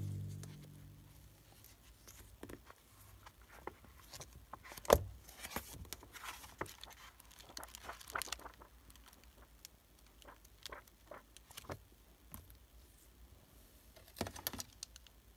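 Paper and stationery being handled on a wooden desk: a sticker sheet in its plastic sleeve and a notebook's pages flipped through, giving scattered soft rustles and light taps. The loudest is a sharp knock about five seconds in, with another cluster of taps near the end.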